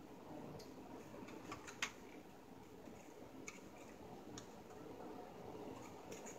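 Scattered light clicks and taps over faint room noise, about six in all, the loudest about two seconds in: small parts of a ring light and tripod stand being handled and fitted together.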